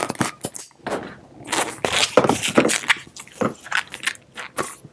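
Latex 260 modelling balloon being handled after inflation: irregular rubbing and scraping of the latex against hands and clothing, with a few short clicks and knocks as the hand pump is pulled off and put down.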